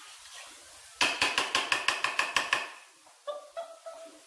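A metal utensil beating quickly against a ceramic bowl while mixing a sauce: a fast run of ringing clinks, about seven a second, for under two seconds.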